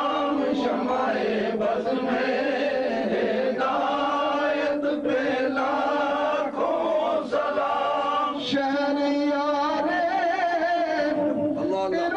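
Voices chanting a drawn-out devotional chant, the held notes wavering in pitch.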